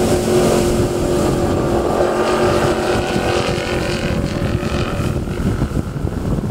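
Cigarette Racing 42X powerboat's twin Mercury Racing QC4V 1100 twin-turbo engines running at speed, a steady engine tone that fades after a few seconds as the boat runs away. Wind buffets the microphone throughout.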